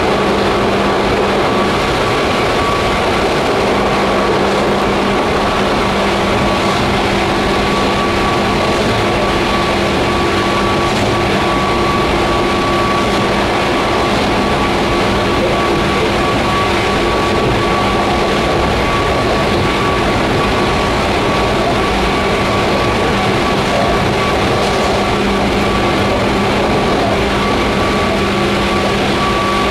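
A JR 119 series electric train running at steady speed, heard from inside the passenger car: a loud, even rumble of wheels and running gear with steady humming tones that hold the same pitch throughout.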